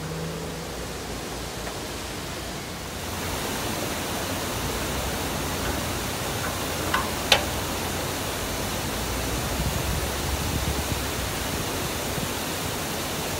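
Steady rushing of water at a canal lock while the paddle gear is wound, growing louder about three seconds in. One sharp click comes about seven seconds in.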